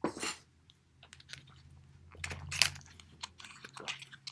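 Clicks and crinkles of small cosmetic packaging being handled as a boxed lip gloss is worked open, in irregular short bursts, loudest a little past halfway.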